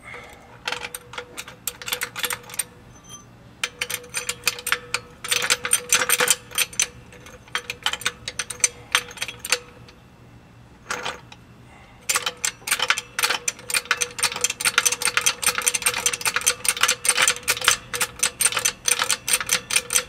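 Rapid metallic clicking in repeated bursts from a wrench being worked on the outer tie rod's nut.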